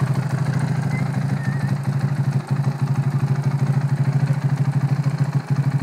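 KTM 690 Duke's LC4 single-cylinder engine idling through an Akrapovic exhaust with the dB killer removed. It runs with a steady, even pulse and two brief dips in level.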